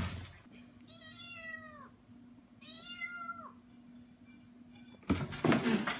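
Kitten meowing twice, each meow about a second long and dropping in pitch at its end, over a steady low hum. A loud burst of noise comes in near the end.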